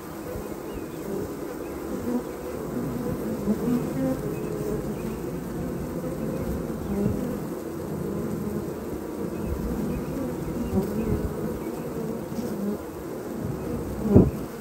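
Honey bees buzzing at a hive entrance: the dense, wavering hum of many wings at once. There is a brief, louder burst near the end.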